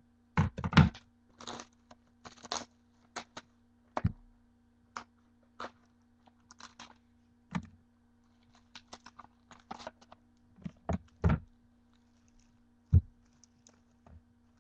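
Trading-card box being opened and its contents handled: irregular thuds, knocks and short rustles, the loudest knocks about half a second in and near the end.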